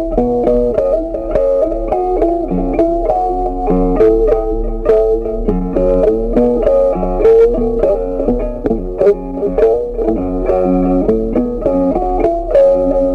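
Instrumental background music led by a plucked guitar, a melody of short notes over a bass line.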